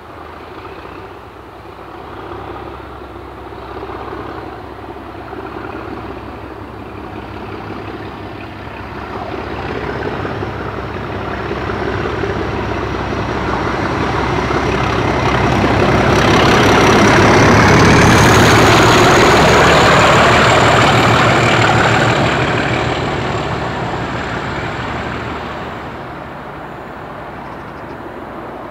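English Electric Class 37 diesel locomotive working hard under power as it accelerates past, its engine note building to its loudest about two-thirds of the way through and then fading as it moves away. A high whistle rises slowly in pitch through the pass.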